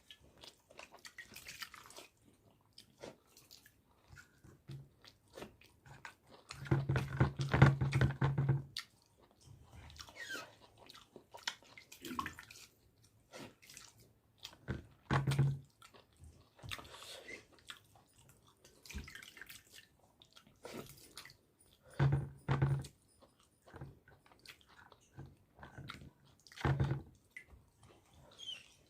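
Close-up eating sounds: chewing and biting, with wet squelching and dripping from watery pakhala rice. Several louder bursts come through, the longest about seven seconds in, with shorter ones later.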